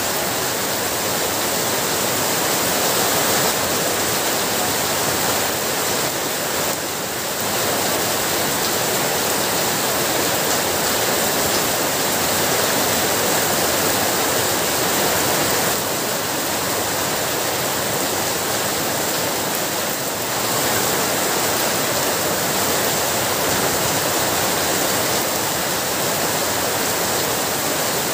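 Heavy rain falling steadily, a dense even hiss that dips briefly about seven seconds in.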